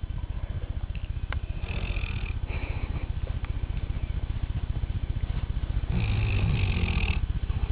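Sleeping dog snoring: a steady low fluttering rumble, with two louder snoring breaths about two seconds in and again about six seconds in.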